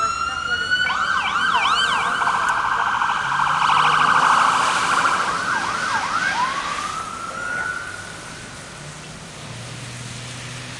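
An emergency vehicle's electronic siren winds up into a wail, switches to quick up-and-down yelps and a fast warble, then holds one long wail and fades out about eight seconds in, leaving a low traffic hum.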